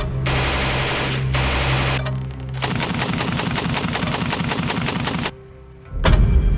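Two bursts of automatic fire from a SAR 762 MT belt-fed 7.62×51 mm NATO machine gun. The second burst is longer, with distinct shots at about eight a second. Background music with a steady bass runs underneath, and a single heavy hit comes near the end.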